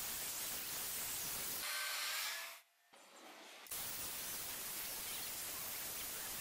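Ryobi PE1600 single-action (rotary) polisher running with a sponge buff against car door paint, a steady whirring hiss as the compound is worked into faded, chalky white paint. The sound cuts off about two and a half seconds in and comes back about a second later.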